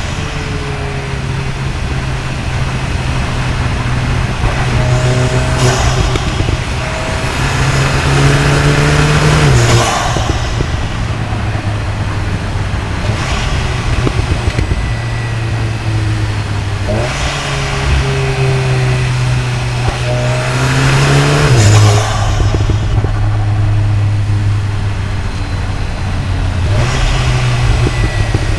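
Cupra Ateca's turbocharged EA888 gen 3 four-cylinder engine, heard from microphones at the intake and the exhaust, pulling steadily while driving. Its pitch drops twice, about ten seconds in and again near twenty-two seconds, as the DSG gearbox shifts up, each drop just after a high whistle sweeps upward.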